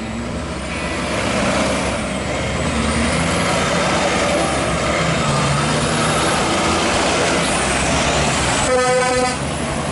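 Diesel engine of a red Kenworth tractor-trailer running as the truck drives up and passes close by. A short horn blast comes about nine seconds in.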